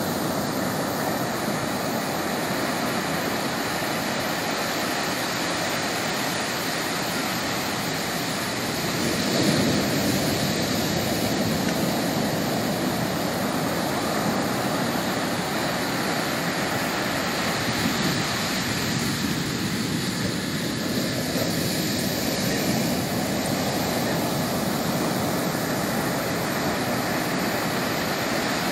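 Ocean surf breaking and washing up over the sand in a steady rush, swelling louder about nine seconds in.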